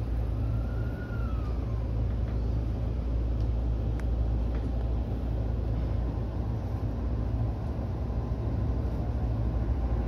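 JR East E231-series commuter train running, heard from inside the driver's cab: a steady low rumble of the wheels on the rails. A faint tone glides up and down about a second in, and a single sharp click comes about four seconds in.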